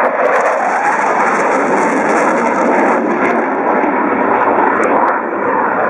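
Panavia Tornado GR4 jet's twin RB199 turbofans running loud and steady as the aircraft passes low overhead, a high hiss in the noise fading about halfway through.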